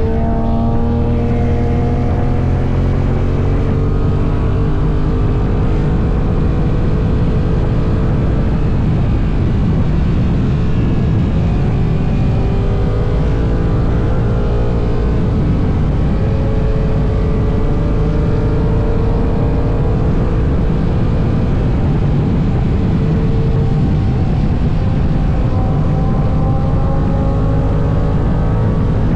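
Honda NT1100's parallel-twin engine running at highway speed, its pitch slowly rising and falling with the throttle, over a heavy rush of wind and road noise.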